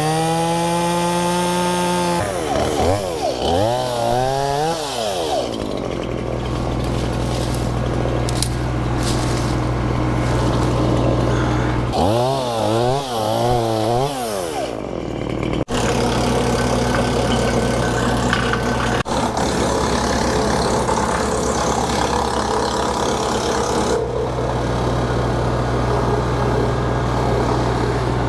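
Woodland Mills WC68 PTO wood chipper, driven by a Massey Ferguson tractor, chewing up an elm branch. The rotor's pitch dips and recovers in waves as the wood loads it down, over the steady hum of the tractor engine, with dense chipping noise and a couple of sharp knocks about midway.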